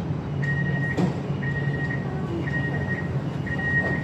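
MRT train's door-closing warning: a high electronic beep, each about half a second long, repeating about once a second from about half a second in, over the steady low hum of the stationary train.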